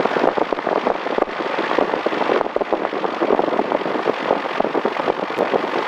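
The engine and propeller of a single-engine Cessna, heard from inside the cockpit as it taxis: a steady, dense, crackling noise with no clear pitch.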